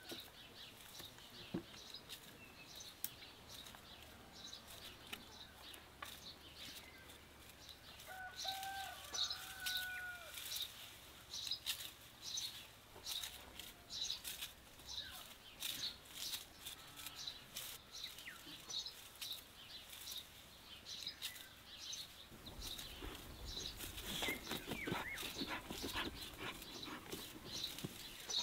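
Small birds chirping and twittering throughout, with a few longer gliding calls about a third of the way in. In the last few seconds a dog digging in the soil adds a rough rustling of scratched earth.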